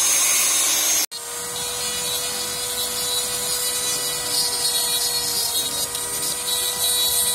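Angle grinder cutting into a chassis plate for about a second, then, after a sudden break, a small high-speed rotary tool with a cutting bit running with a steady whine as it routes the edge of the plate. The cutting noise rises and falls as the bit bites.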